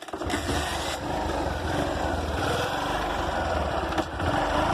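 Small motorcycle engine running steadily and evenly.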